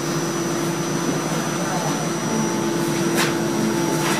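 Steady interior hum of an NFTA Metro Rail light-rail car: ventilation blower noise with a constant low tone and a high whine, and a couple of sharp clicks about three to four seconds in.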